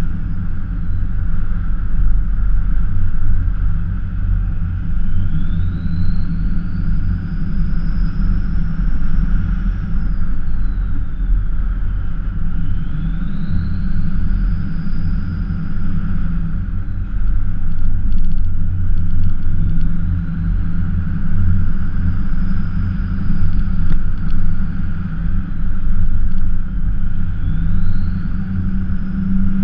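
Ford F-350 pickup truck driving at a steady pace, a low engine and road rumble throughout, with a faint high whine that rises, holds and falls away about four times.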